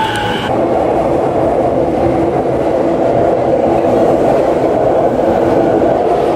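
Electric commuter train moving along a station platform close by: a high wheel squeal that cuts off about half a second in, then the steady rumble and rattle of the cars going past.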